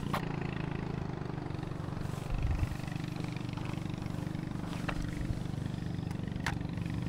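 Steady low engine hum, like a motor idling, with a few faint clicks.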